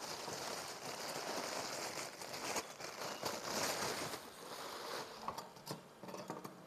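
Plastic packaging bag crinkling and rustling as it is handled. A few light clicks come near the end.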